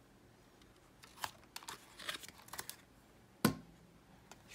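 Hands handling a paper hang tag tied to a plastic tumbler: a couple of seconds of light rustling and small clicks, then one sharp knock about three and a half seconds in, the loudest sound.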